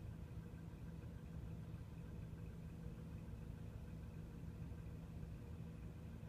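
Heavy crane truck's diesel engine running steadily at a constant speed, a low, even hum.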